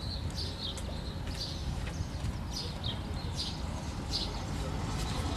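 Birds chirping in short, repeated calls, about two a second, over a steady low rumble.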